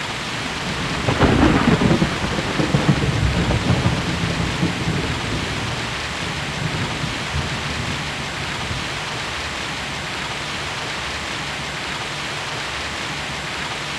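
Steady heavy rain with a thunderclap about a second in, which rolls on as a low rumble and fades out over several seconds, leaving the rain alone.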